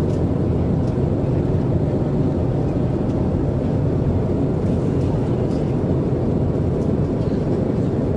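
Steady low rumble of an airliner's cabin noise, with no change through the stretch.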